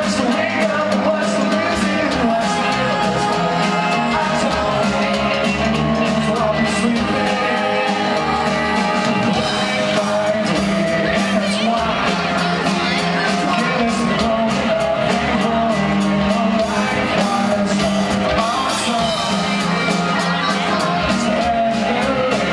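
Live rock band playing a song, with a singer over guitar, keyboard, bass and drums, heard from the audience in a large concert hall.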